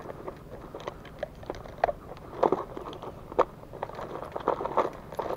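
Irregular close-up crunches and clicks of handling noise, with a few sharper knocks a little past the middle, as a caught piranha is held and pliers are fetched.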